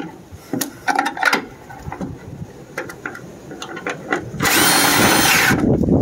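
Milwaukee M18 cordless impact driver running for about a second, driving a quarter-inch gutter screw through a downspout strap, its motor pitch rising then falling. Before it come light clicks and knocks of the screw and tool being handled, and a low wind rumble on the microphone follows near the end.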